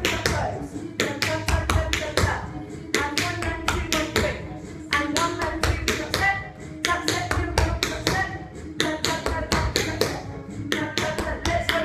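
Tap shoes striking a wooden floor in quick runs of taps with brief pauses between, dancing a travelling tango-style tap sequence.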